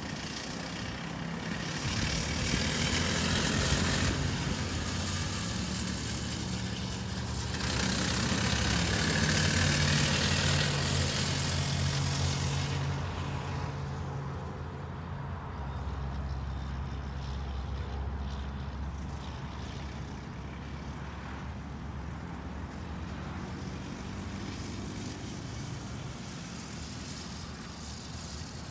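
Go-kart engine running as the kart laps the track, loudest twice in the first half as it passes nearer and then quieter and farther off, its pitch rising and falling with the throttle through the corners.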